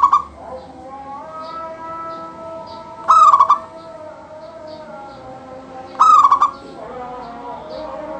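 Local zebra dove (perkutut) singing in full voice: a loud, short stuttering coo phrase repeated about every three seconds, three times.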